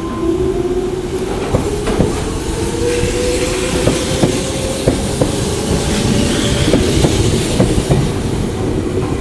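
Toyohashi Railway Atsumi Line electric train passing a level crossing: the traction motor whine rises steadily in pitch as the train gathers speed, and the wheels click over rail joints every half second or so.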